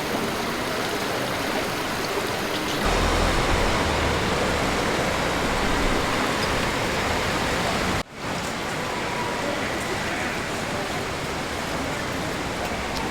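Hot spring water of the Yubatake rushing and cascading in a steady wash of noise. A low rumble joins about three seconds in, and the sound breaks off for an instant about eight seconds in before carrying on.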